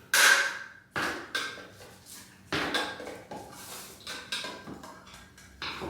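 A can of pre-stain wood conditioner being pried open: a string of sharp knocks and clanks at the lid, the loudest right at the start and the rest spread about a second apart.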